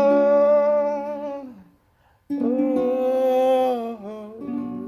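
A voice humming long held notes over chords on a plucked string instrument. The first note dies away after about a second and a half. After a brief silence a second held note and chord come in, and then quieter plucked notes follow as the song ends.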